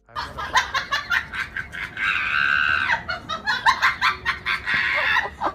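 Animal calls: a fast run of short clucking pulses, with a longer, higher drawn-out call about two seconds in.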